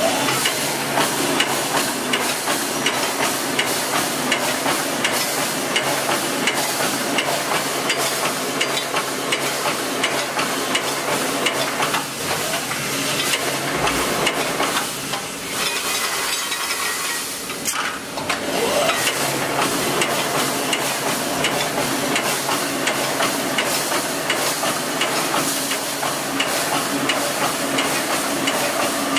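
Automatic wire mesh welding machine running, its row of electrodes spot-welding the cross wires with a continuous sizzling crackle and many sharp clicks over a low steady hum.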